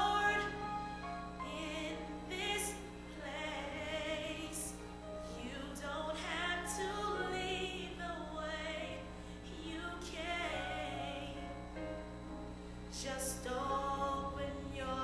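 Song with a solo voice singing in an operatic, classical style, holding long wavering notes with vibrato over instrumental accompaniment.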